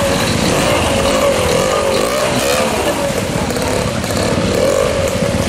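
BSA Bantam two-stroke single trials motorcycle picking its way up a rocky stream bed, its revs rising and falling with the throttle. The fast-flowing stream rushes beneath it.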